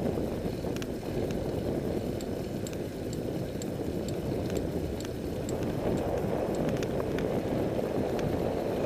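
A bicycle rolling along a paved road, heard from a camera mounted on the bike: a steady low rumble from the ride, with light clicks and rattles a few times a second.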